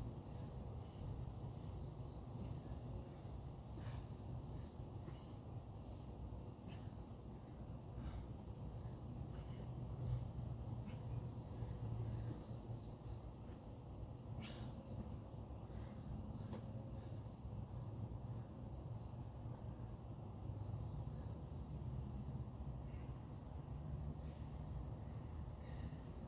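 Steady low background rumble with a constant high, thin whine and a few faint scattered clicks.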